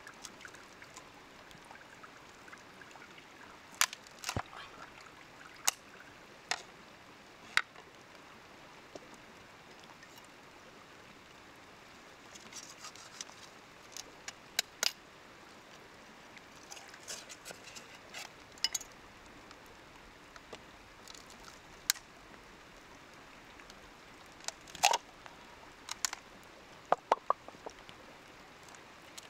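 Irregular sharp clicks and taps of hard objects knocking together, scattered every second or two, with a quick run of four near the end, over a faint steady hiss.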